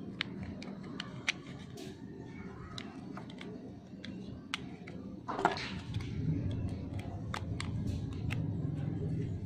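Scattered small clicks and taps of plastic and metal as a motorcycle's push-start handlebar switch housing is handled and a screwdriver works a screw on its clamp, with one louder, longer handling noise about halfway through.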